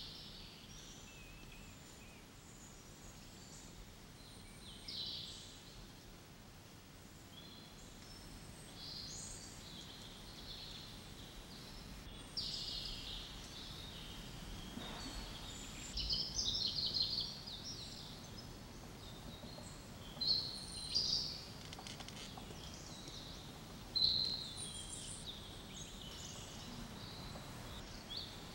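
Wild birds chirping and calling in short, scattered bursts over a faint steady hiss, with a few louder calls in the middle and later on.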